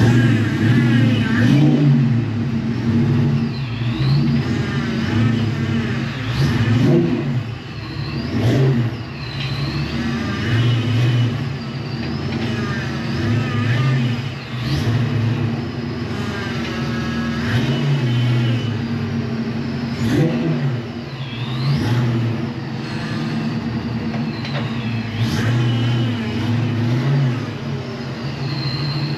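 Fox-body Mustang V8 engine running as the car is moved, the engine note swelling and easing every couple of seconds, with faint high squeaks now and then.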